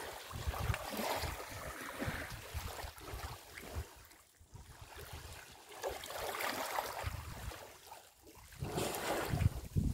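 Water sloshing and lapping as an African elephant swims and wallows almost fully submerged close by, with wind buffeting the microphone. The wash eases briefly around four seconds in and again near eight seconds, then swells as the elephant's head surfaces near the end.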